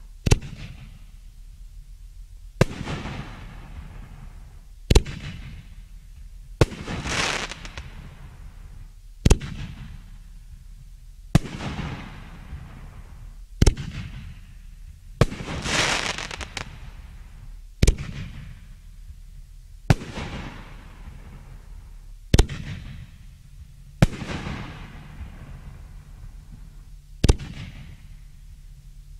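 Reloadable fireworks artillery shells being fired one after another, with a sharp report about every two seconds, each fading out in a short rumble. Two of the bursts, about a third and about half way through, trail off in a longer hiss.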